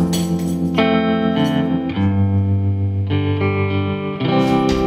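Background music led by guitar, with chords changing about once a second.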